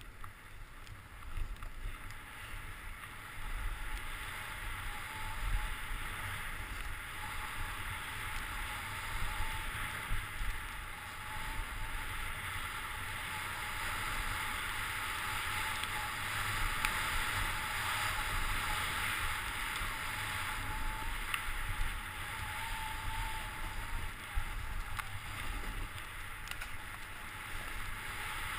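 Steady hiss of skis gliding fast over groomed snow on a downhill run, with wind rumbling on the microphone.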